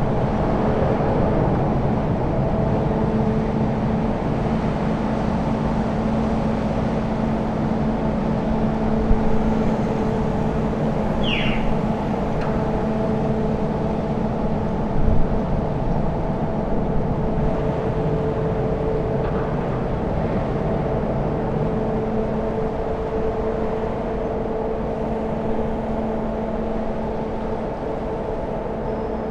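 Ro-ro passenger ferry Pride of Hull's engines and machinery running, a steady drone with several steady humming tones. A bird calls once, briefly, about eleven seconds in.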